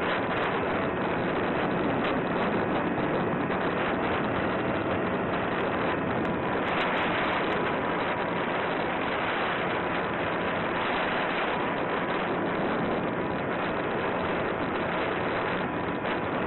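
Wind rushing over the onboard camera's microphone of a Volantex Sport Cub 500 RC plane in flight, with a faint steady whine from its motor and propeller.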